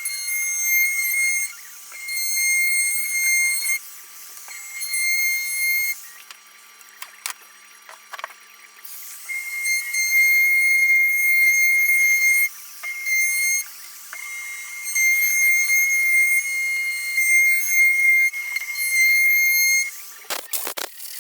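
A power tool's steady, high-pitched whine, switching on and off in stretches of one to six seconds, with a few short clicks in the gaps.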